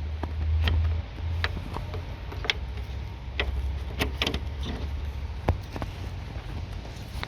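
Scattered light clicks and knocks of a bulb holder and plastic light-housing parts being handled and pushed back into place, over a low rumble that is loudest for about the first second.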